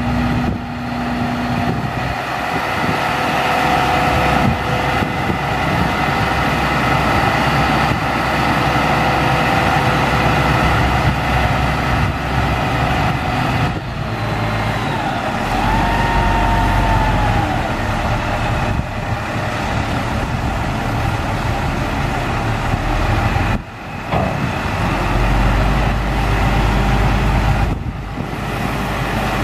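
International DT466 inline-six diesel engine running steadily while the dump bed's hydraulic hoist raises the bed and then lets it down, with the deeper rumble swelling twice, about halfway through and near the end.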